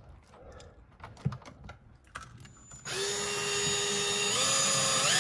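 A few faint handling clicks, then about three seconds in a power drill starts up and runs with a steady whine, drilling a hole. Its pitch steps up twice as the drill speeds up.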